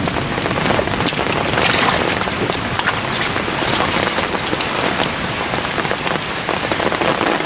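Heavy rain pouring down: a loud, steady hiss with a dense crackle of drops striking close by.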